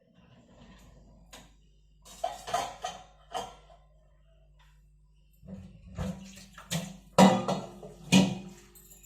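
Dishes clattering in two spells, with water running, over a steady low machine hum.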